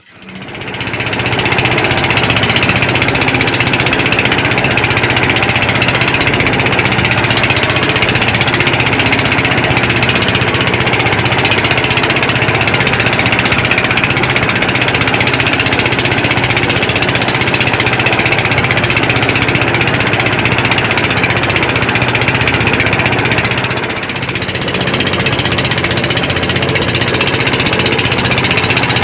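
Small boat engine running steadily at constant speed, with a brief drop in level about 24 seconds in.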